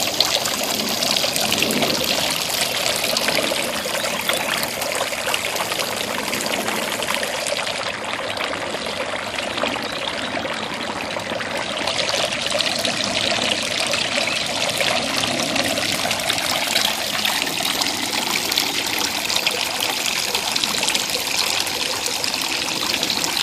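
Three-tier concrete garden fountain running, water spilling from tier to tier and splashing steadily into the basins, fairly loud.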